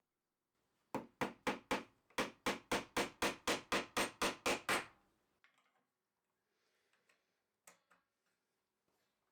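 A rapid run of about fifteen sharp knocks, about four a second, with a brief pause after the first four, followed by a few faint scattered taps.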